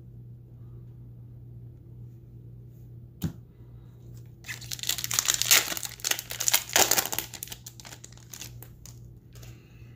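A foil Magic: The Gathering Mystery Booster pack wrapper being torn open and crinkled, starting about four and a half seconds in and lasting about three seconds. Before it comes a single light tap, and a few small clicks of card handling follow it, all over a low steady hum.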